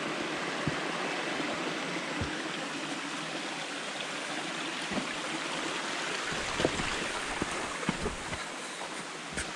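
Small woodland stream flowing and babbling steadily, with a few soft low thumps scattered through it.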